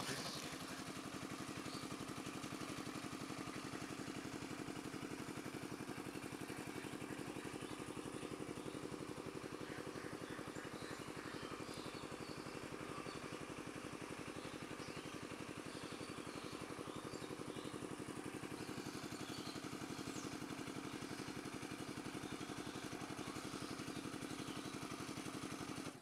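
An engine running steadily with an even hum, holding the same pitch and level throughout.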